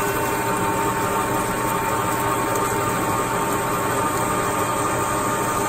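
Metal lathe running steadily with a faint steady whine while a four-facet split-point drill cuts into the spinning workpiece, two chips curling out of the hole: the sign that the drill is cutting well.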